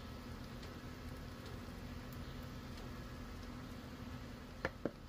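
Pancake batter cooking in butter on a hot Blackstone flat-top griddle: a steady quiet sizzle with a low hum underneath. Two short clicks come near the end.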